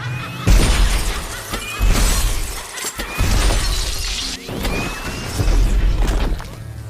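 A rapid series of about five Iron Man–style repulsor energy-blast sound effects, each a crackling burst with a deep boom, over background music.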